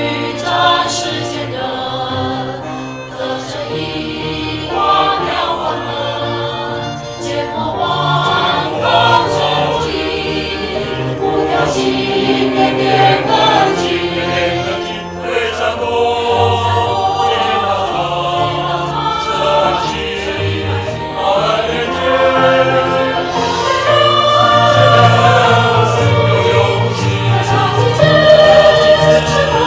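Choir singing a Chinese hymn in unison, over sustained low instrumental accompaniment.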